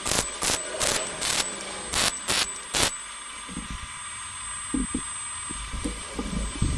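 A welder laying about eight short bursts of weld in the first three seconds, stitching the cracks in a cracked exhaust pipe to seal an exhaust leak. A steady faint hiss with a few soft knocks follows.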